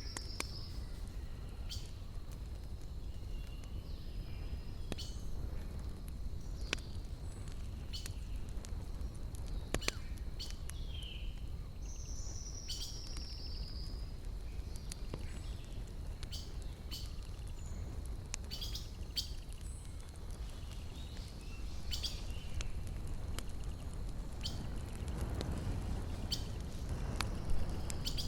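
Wood campfire crackling, with sharp pops at irregular intervals over a low rush. A bird calls twice with a short falling trill, and the low rush grows louder near the end.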